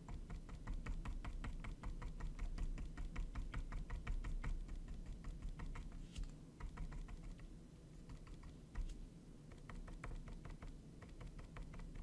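Flat paintbrush dabbing against a small canvas in rapid taps, several a second, stippling in foliage. The tapping thins out a little past halfway and picks up again near the end.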